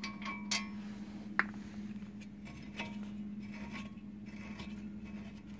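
Light metal clinks and scrapes from brake and hub parts being handled and pulled off the hub, with one sharper ringing clink about a second and a half in, over a steady low hum.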